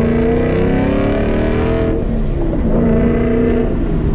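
2019 Mustang GT's 5.0 V8 through a Corsa Xtreme catback exhaust, loud and accelerating with its pitch climbing. About two seconds in the pitch drops at a gear change, then it pulls again.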